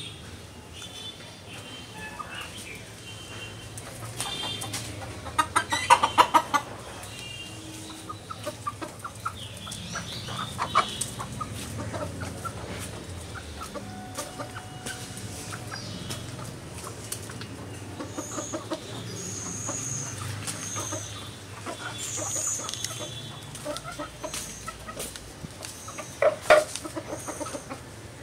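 Chickens clucking and calling in short repeated notes, with louder outbursts about six seconds in and again near the end, and high thin chirps in the second half.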